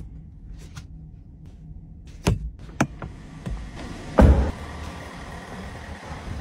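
A Bentley Mulsanne's rear door is pushed shut with a heavy, deep thud about four seconds in. Before it come a couple of sharp clicks and knocks.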